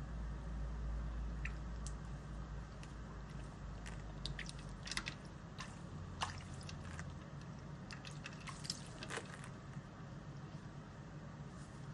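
African grey parrot in an ice bath: scattered small wet splashes and sharp clicks, bunched in the middle, over a steady low hum.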